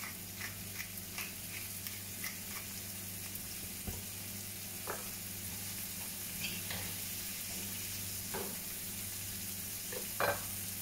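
Chopped tomato and green pepper sizzling in oil in a frying pan. For the first couple of seconds a pepper mill grinds in quick, even clicks; then a wooden spatula stirs and knocks a few times against the pan, with a louder clack near the end as the spatula is set down on a ceramic plate.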